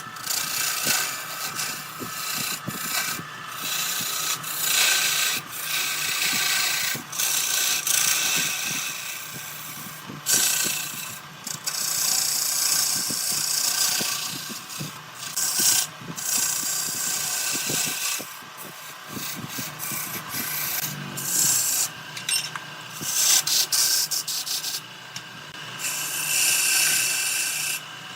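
A tool working spinning wood on a woodturning lathe: scraping, hissing strokes that start and stop unevenly over a low steady hum.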